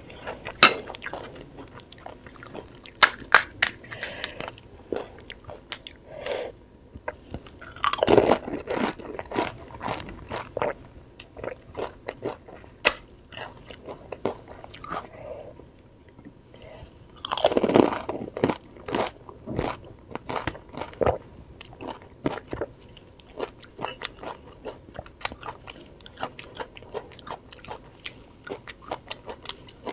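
Pani puri being eaten close to the microphone: crisp, hollow fried puris crunching between the teeth, with steady chewing and many small sharp crackles. Twice, about eight and seventeen seconds in, comes a louder bite lasting about a second.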